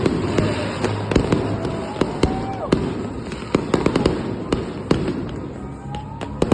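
Aerial fireworks going off in quick succession: sharp bangs and cracks, several a second, with faint whistles gliding in pitch between them.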